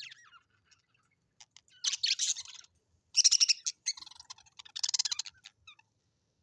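Birds calling: a faint chirp at the start, then three loud bursts of rapid, scratchy chattering calls about a second apart.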